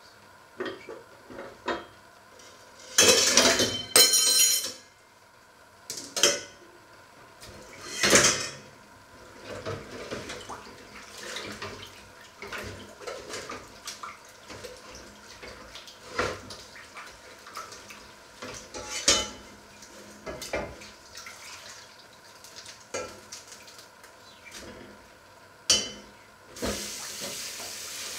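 Dishes, pots and cutlery clattering and knocking in a stainless steel sink while being washed up, with a string of loud metallic clanks about three to four seconds in. Near the end the tap is turned on and water runs steadily into the sink.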